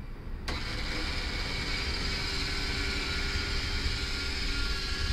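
Powered lift mechanism of a boat's hinged aft bench hatch lowering it over the technical compartment. It is a steady motor hum with a hiss that starts suddenly about half a second in.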